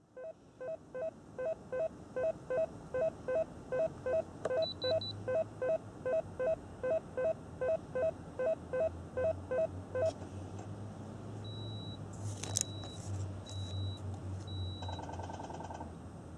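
Electronic sound unit of a Tamiya Scania R620 RC truck. An even two-tone ticking of the indicators runs about two and a half times a second for the first ten seconds, and a low steady hum of the simulated engine idle joins after about four seconds. Later come a few short high beeps.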